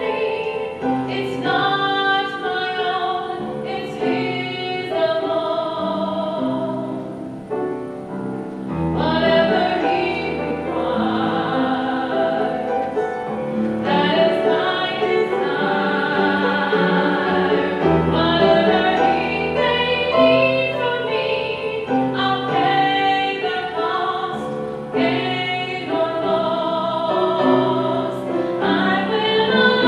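A woman singing a solo with vibrato on held notes, accompanying herself on an upright piano.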